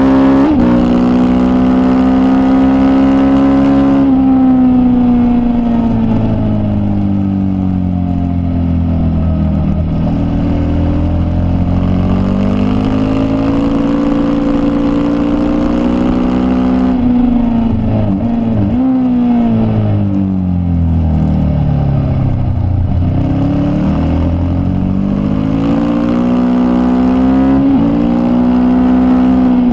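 Racing motorcycle engine at full song, heard onboard. Its note falls as the bike slows for corners and climbs again as it accelerates. A little past halfway the pitch jumps up and down sharply several times.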